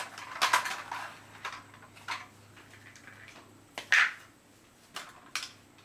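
Hard plastic toy motorhome clicking and clattering as its hinged sides are pulled open and its pieces handled on a wooden floor: scattered short knocks, a cluster near the start and the loudest about four seconds in.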